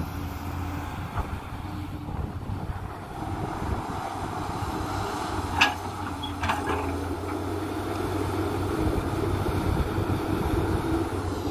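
JCB 210 tracked excavator's diesel engine running steadily as the machine digs and swings its bucket through soil. Two sharp clanks come about a second apart midway, the first the loudest sound.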